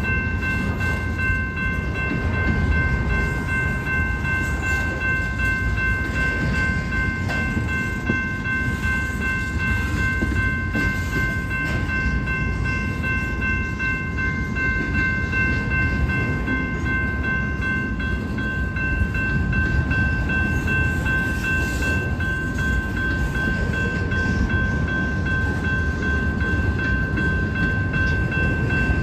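Double-stack intermodal train's well cars rolling past: a steady low rumble of steel wheels on rail, with a steady high-pitched ringing tone held over it.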